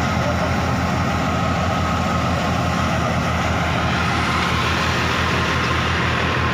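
New Holland Fiat 480 tractor's diesel engine running steadily, driving a wheat thresher: an even, pulsing low engine note with the thresher's steady whine over it.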